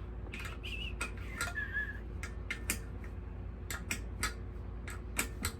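Hand tools working on a mini bike's metal parts: irregular clicks and clinks of metal on metal, about a dozen, with a brief squeak early on.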